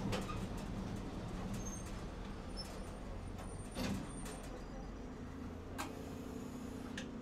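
Interior of a Tosaden streetcar: the tram's steady low hum, with a sharp knock about four seconds in and a few lighter clicks near the end. A steady tone joins the hum about halfway.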